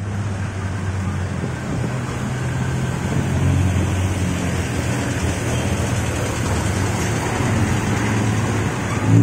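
Diesel engine of a Higer KLQ6115HT coach running as the bus pulls up and drives past, a steady low drone that grows louder over the first few seconds as it draws near, over street traffic noise.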